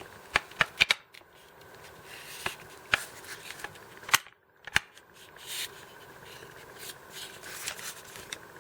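Sharp, scattered clicks and light knocks as a cordless jigsaw is handled and its tilting shoe and locking lever are worked.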